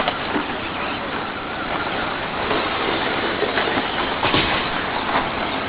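Electric RC short course trucks racing on a dirt track: a continuous noise of motors and tyres on dirt, with a few brief knocks.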